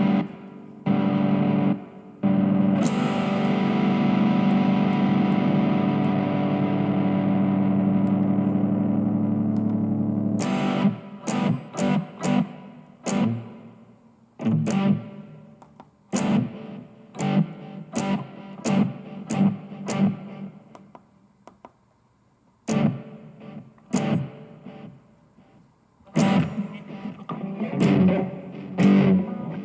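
Electric guitar with distortion played through a BOSS eBand JS-10 amplifier. A chord is held ringing for several seconds, then the playing turns to short, choppy chords and notes with gaps between them.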